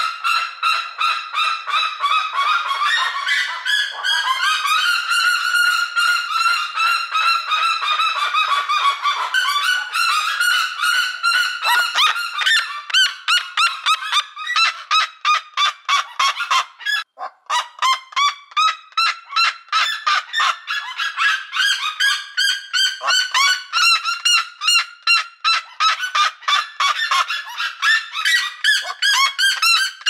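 Red-legged seriema calling: a long, loud series of calls, drawn-out notes falling in pitch at first, then fast short notes several a second, with a brief pause a little past halfway.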